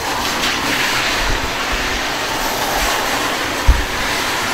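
Steady rushing noise, with a single low thump near the end.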